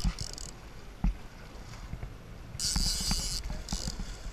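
A hooked king mackerel thrashing at the surface beside the boat, splashing in short bursts: one right at the start and a longer one about two and a half seconds in. Low wind buffeting and a sharp knock about a second in sit under it.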